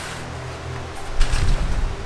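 Strong wind gusting on the microphone, a low rumble that grows louder about a second in.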